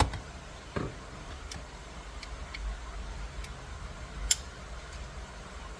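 Scattered sharp metallic clicks from a 21 mm socket wrench and steering wheel nut as the nut is run back onto the steering shaft, irregular and about one every half second to second, the sharpest a little past four seconds in.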